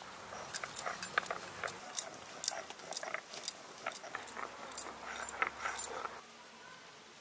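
Whole dried red chillies being crushed with a stone pestle on a flat stone grinding slab (sil-batta): a run of irregular crisp crackles and crunches. It stops abruptly about six seconds in.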